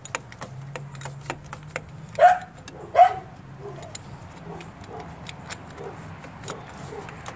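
Socket ratchet wrench clicking in quick, uneven runs as bolts on the thermostat housing of a 3.8 V6 are worked. A dog barks twice, loudly, about two and three seconds in, with fainter barks later.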